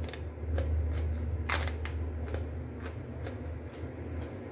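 A person chewing food close to the microphone, with scattered crunchy clicks, the loudest about one and a half seconds in, over a steady low hum.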